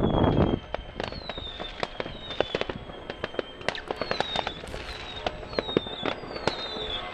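Many firecrackers and fireworks going off across a village: a loud rush in the first half second, then a dense, irregular crackle of sharp bangs and cracks. A high whistle, falling slightly in pitch, repeats about every two-thirds of a second through it.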